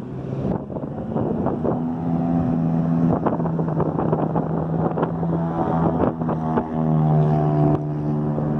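An engine running steadily with a humming drone that shifts pitch a few times, with wind buffeting the microphone.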